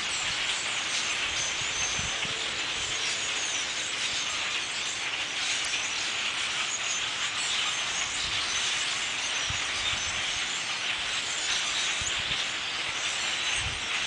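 A huge flock of blackbirds calling all at once: a dense, unbroken wash of high chirps and squeaks that never lets up.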